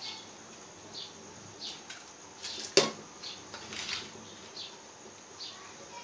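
Kitchen handling sounds as soaked rice is added to a steel pot of boiling water: a run of short, soft swishes, and one sharp knock of the pot or utensil about three seconds in.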